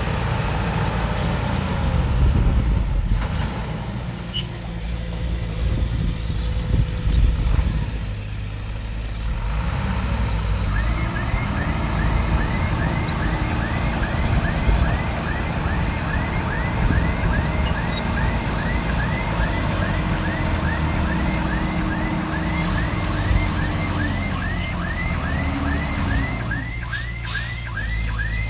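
Heavy-equipment diesel engine running under load. From about a third of the way in, a fast, evenly repeating rising chirp joins it, about two to three a second.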